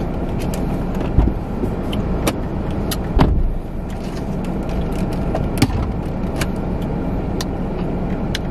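Steady low road and engine rumble of a car being driven, heard from inside the cabin, with scattered light clicks and a heavier knock about three seconds in.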